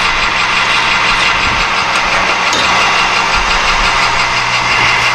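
Metal lathe running with its chuck spinning, a steady hum with an even hiss over it.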